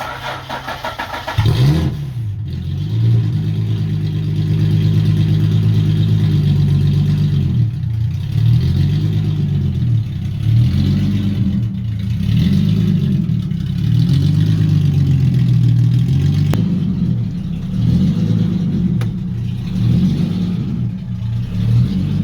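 Nissan VQ35HR 3.5-litre V6, swapped into a Toyota Cressida, cranking briefly and catching about a second and a half in. It then runs with its revs rising and falling again and again.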